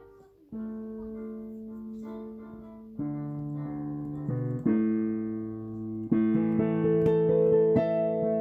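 Keyboard playing held chords that come in about half a second in and change every second or two, growing fuller, with a steady pulse of repeated chord strikes from about six seconds in.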